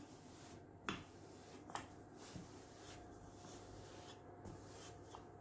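Wooden rolling pin rolling out soft dough on a wooden board: faint rubbing strokes, with a light knock about a second in and another near two seconds.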